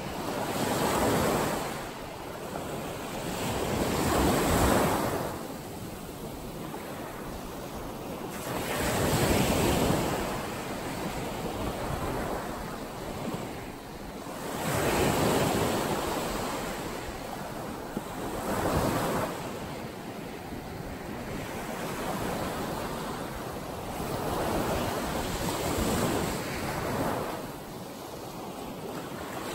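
Small waves breaking and washing up a sandy beach, the surf swelling and ebbing every few seconds.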